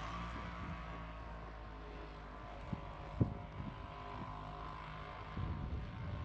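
A small-engine recreational vehicle running at a distance: a steady engine drone whose pitch swells a little around the middle. Wind noise on the microphone and one short click a little after three seconds.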